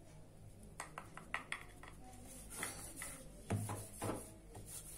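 Wooden rolling pin knocking and clicking lightly against a wooden rolling board while thick, crumbly dough is rolled out: a string of short taps, a quick cluster about a second in, then scattered knocks.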